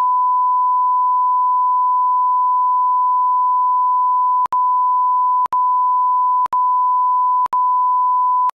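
Steady 1 kHz reference tone of a video countdown leader. Over the last few seconds it drops out briefly four times, once a second, in step with the count, then cuts off.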